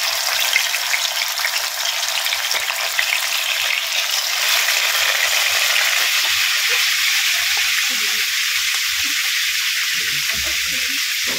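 Large pieces of rohu fish sizzling steadily as they fry in a generous amount of hot oil in a pan.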